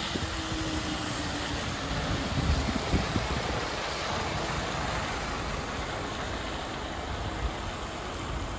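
Articulated city bus driving past close by and pulling away, its engine humming under a steady hiss of tyres on the wet road; the hum drops slightly in pitch over the first few seconds, with a few low knocks about three seconds in.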